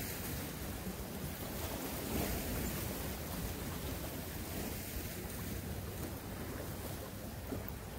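Steady rushing wind noise buffeting the microphone, with a low rumble and water washing.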